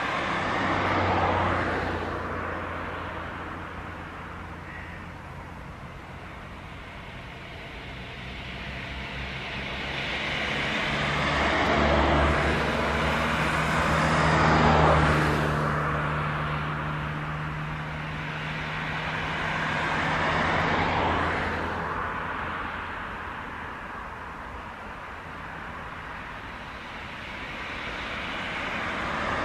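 Road traffic: vehicles passing one after another, each a slow swell of tyre and engine noise that rises and fades, the loudest about halfway through, over a steady low hum.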